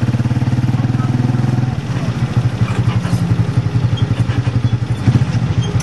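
An engine running steadily at idle, with a fast, even pulse.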